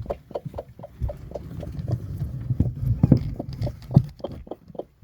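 A broody hen making a rapid run of short, low clucks, about five or six a second, over a low continuous grumble, as eggs are taken from under her.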